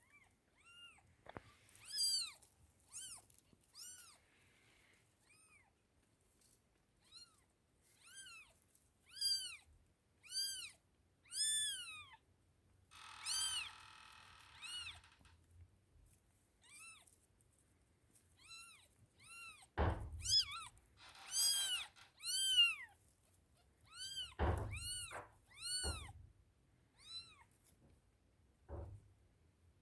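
Newborn kittens mewing: many short, high-pitched cries that rise and fall, about one a second. There is a stretch of rustling about halfway through and a few soft thumps in the second half.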